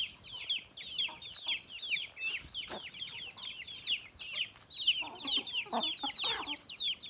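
Young guinea fowl keets and chicks peeping nonstop: a dense stream of short, high, falling peeps, several a second. Lower clucks join in about five seconds in.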